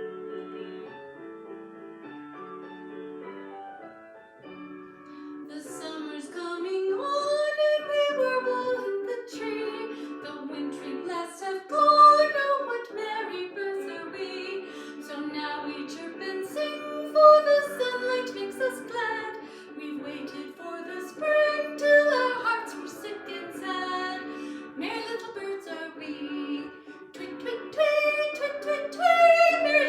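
A song: a woman singing a melody with vibrato over a light instrumental accompaniment. The first few seconds are instrumental, and the voice comes in about six seconds in.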